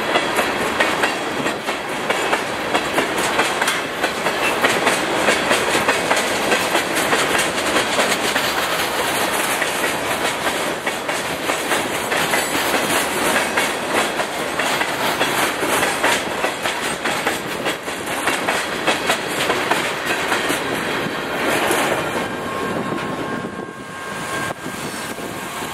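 Freight train of loaded dump cars rolling past at close range, the steel wheels clicking rapidly over the rail joints. The sound fades over the last few seconds as the end of the train passes.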